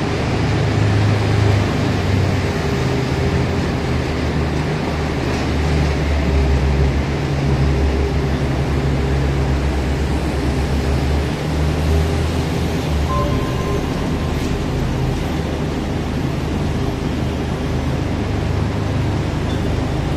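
Passenger train coaches rolling slowly past on the station tracks as the train arrives, a steady low rumble of wheels on rail.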